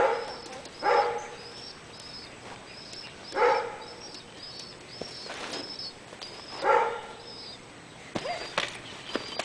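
A dog barking, four single barks spaced a few seconds apart, over a small bird's high chirps repeating about twice a second.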